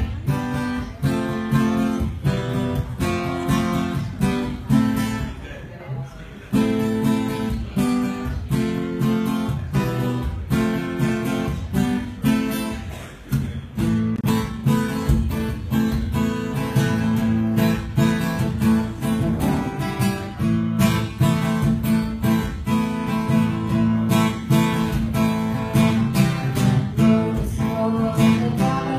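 Acoustic guitars strumming a live instrumental song intro in a steady rhythm, with two short breaks about six and thirteen seconds in before the playing grows fuller.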